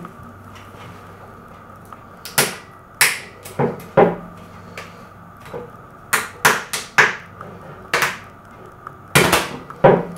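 Sharp plastic clicks and knocks of a 3.5-inch floppy disk being worked against a glass beer bottle's crown cap to pry it off, about a dozen irregular strikes, several in quick succession.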